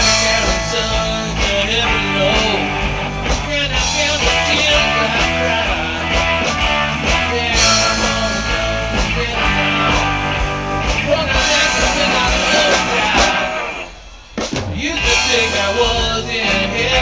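Live rock band playing: electric guitars, bass guitar and drum kit. The band cuts out for about half a second near the end, then comes straight back in.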